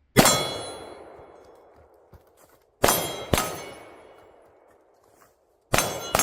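Pistol shots at steel targets, each followed by the clang and ring of the struck plate. There is one shot, then a double tap about three seconds in, then the first two shots of a triple tap near the end, with pauses as the shooter moves between positions.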